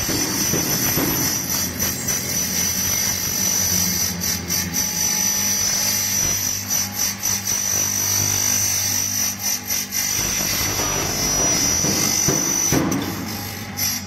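Spiral tube making machine running, forming perforated metal strip into a spiral filter center tube: a steady machine hum with a high whine and a few scattered clicks.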